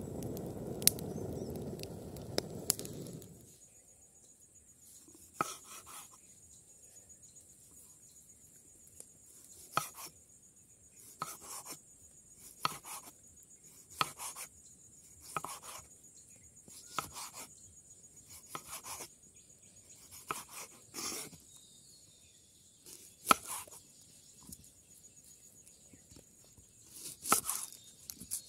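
A wood fire of stacked branches crackles and hisses for about the first three seconds. Then a knife slices tomatoes on a wooden chopping board, one sharp knock of the blade on the board about every second and a half, with a quick run of cuts into an onion near the end.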